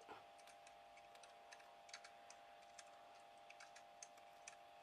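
Faint, irregular clicking of small scissors snipping a hole in a felt disc, over a steady faint hum.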